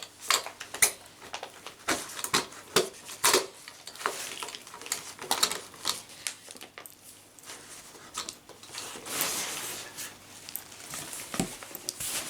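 Hands handling a binder and its plastic pocket pages: many quick clicks and taps, with a longer rustle about nine seconds in.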